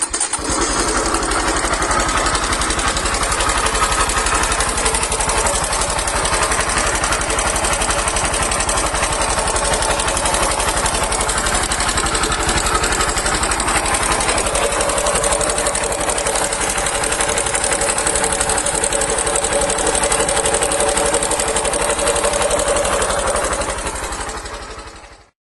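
Honda Super Cub C110's air-cooled single-cylinder four-stroke engine running steadily with fast, even firing pulses. It is running after a camshaft replacement and tappet adjustment, free of the earlier rumbling from a bad bearing and the clicking from loose tappet clearance. It starts suddenly and fades out near the end.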